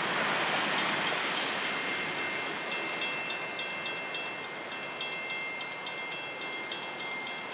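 The last of a passing freight train's rumble fading away, while a railroad crossing bell starts ringing about a second in, a few regular strikes a second, as the crossing gates rise.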